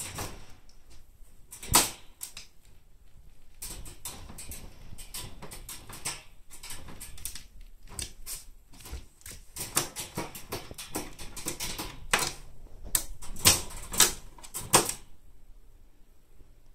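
Irregular clicking, tapping and rattling of a black wire pet cage as a miniature pinscher noses at its bars, fast and dense through the middle, with a few sharper knocks near the end before it settles.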